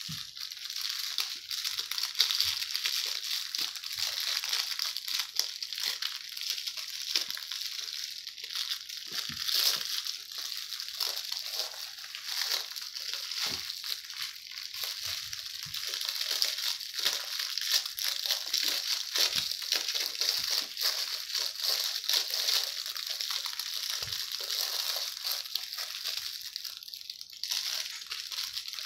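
A litter of puppies scuffling on a blanket and tugging a plush shark toy: steady rustling and scratching of fabric, with scattered small knocks.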